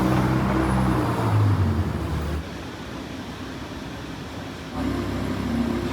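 Loud bass-heavy music with deep held notes that change pitch in steps. It drops away about two and a half seconds in and comes back near the five-second mark.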